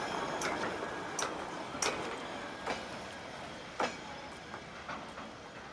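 Goods train of wagons with a brake van at the rear rolling away along the track: its wheels click over the rail joints about once a second, getting fainter as the train draws off.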